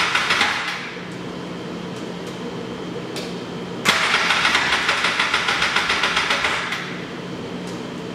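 Polaris Ranger XP 700 twin-cylinder engine cranking on its electric starter with a fast, even pulsing. It does not catch: the cranking stops about a second in and starts again for about three seconds from about four seconds in, with a steady low hum between the attempts. The freshly rebuilt engine is refusing to start.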